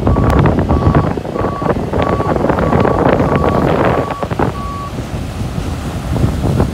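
Reversing alarm on a tracked lifeboat launch tractor, a single-pitched beep repeating about one and a half times a second, over heavy wind buffeting on the microphone. The beeping stops about five seconds in, leaving wind and surf.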